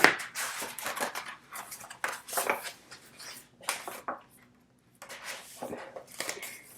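Hands handling a K-pop album's photo book and its paper and cardboard packaging: a run of rustles, scrapes and light knocks, pausing for about a second near the end.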